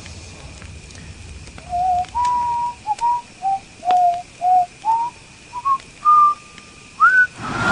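A person whistling a slow tune of about a dozen clear notes, starting about two seconds in and ending on a rising note.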